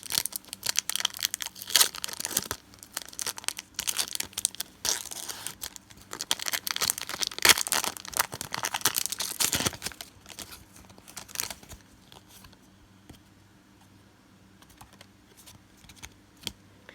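Foil wrapper of a Pokémon card booster pack being torn open and crinkled, a dense run of crackling and tearing for about eleven seconds. It then dies down to occasional faint rustles.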